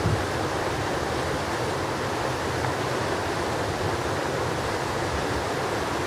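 Steady rush of flowing water over rocks, an even unbroken noise, with some low wind buffeting on the microphone.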